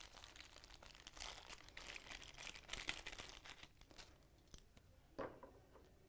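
Faint crinkling and rustling of a small clear plastic bag of MC4 connector parts being handled and opened, in scattered crackles over the first few seconds. A single soft knock a little after five seconds in, as a plastic connector piece is set down on the table.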